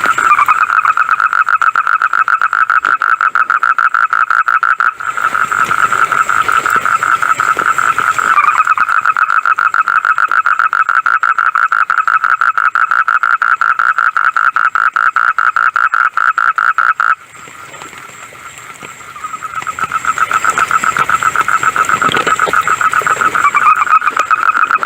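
Frogs calling in a fast, even pulsed trill at a steady pitch, loud and continuous, dropping away briefly about two thirds of the way through before building back up.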